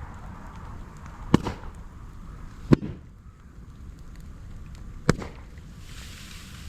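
Moso bamboo burning in an open fire, with three loud sharp bangs as sealed sections of the culms burst in the heat: about a second and a half in, near three seconds, and about five seconds in, over a steady low rumble.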